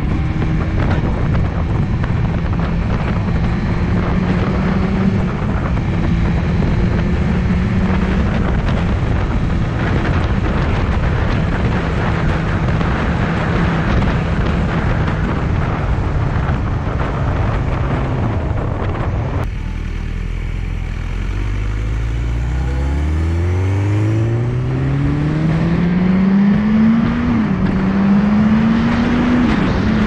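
BMW HP4's inline-four engine running at a steady speed under heavy wind noise. About two-thirds in, the wind drops away and the engine pulls up from low revs, its pitch rising steadily as it accelerates, with two brief dips at upshifts near the end.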